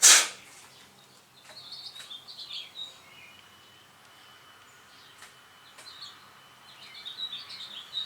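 A short, loud burst of noise at the very start, then high warbling bird chirps in two groups, about a second and a half in and again near the end, over a quiet background.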